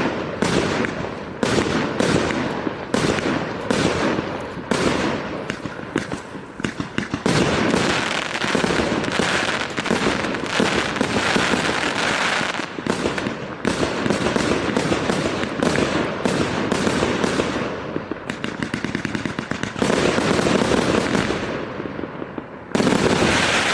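A 138-shot fireworks cake firing: shots launch about two a second at first, then come in a denser run of rapid shots and crackling breaks, with a loud burst near the end.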